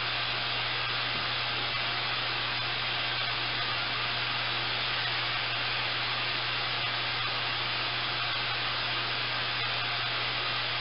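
Steady hiss of static from a handheld amateur radio receiver turned up and listening on an empty channel: no signal from the satellite has come through yet.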